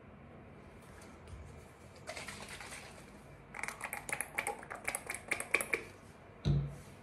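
Rapid small clicks and crackles of hands handling a plastic bottle and a cotton pad, with a dull thump about six and a half seconds in.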